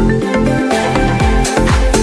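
Background electronic dance music with a steady beat of deep falling bass kicks, about two a second, under held synth chords.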